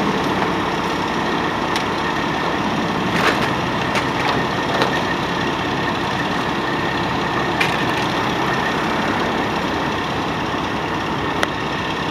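Steady idling engine and road traffic at an intersection, an even rumble with a few faint clicks.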